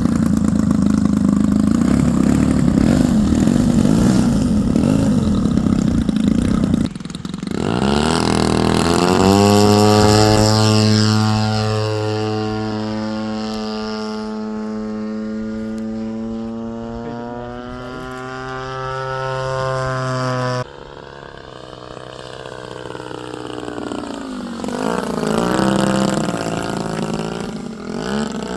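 EPHIL 76cc twin-cylinder petrol RC aircraft engine running with its propeller, throttled up about seven seconds in to a strong, steady note whose pitch drifts slowly. The sound changes abruptly near twenty seconds in, and near the end the pitch rises and falls as the plane flies by.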